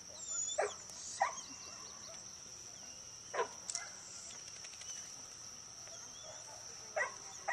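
A dog barking: about five short, single barks, irregularly spaced.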